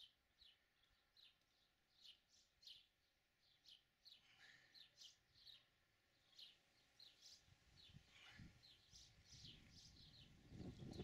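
Faint small birds chirping: many short, quick high chirps at an uneven pace. A low rumble swells in the last few seconds.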